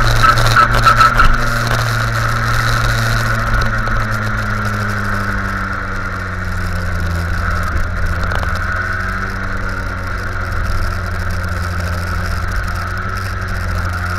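Go-kart engine running hard on track, picked up by a camera mounted on the kart. Its note eases off a little a few seconds in, then holds steady.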